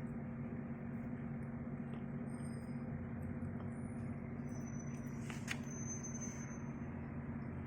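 Steady low mechanical hum throughout, with a brief high chirp about five and a half seconds in.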